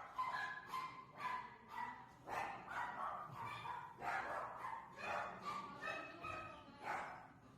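A Pomeranian barking over and over in short, high yaps, about two a second.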